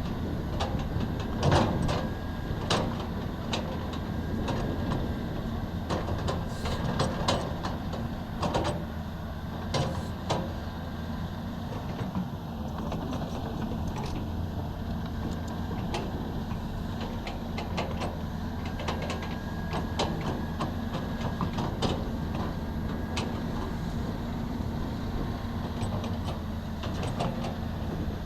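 Hydraulic excavator's diesel engine running steadily under work, with many sharp metallic clanks and knocks mixed in.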